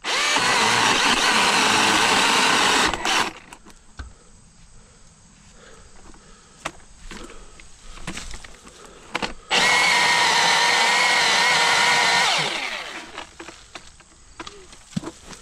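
Milwaukee M18 Fuel battery chainsaw cutting into a tree trunk in two bursts of about three seconds each, its electric motor at a steady high whine. The second burst winds down with a falling whine. Between and after the cuts there are scattered short knocks and snaps.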